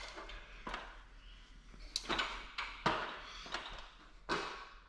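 About seven irregular knocks and clunks, each with a short ring, from someone climbing up.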